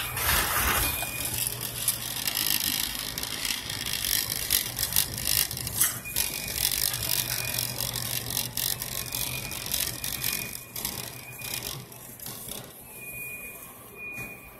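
Wire shopping cart rolling and rattling as it is pushed over a hard store floor, with frequent clicks and clatter from the basket and wheels. A low hum runs underneath, and short high beeps come and go.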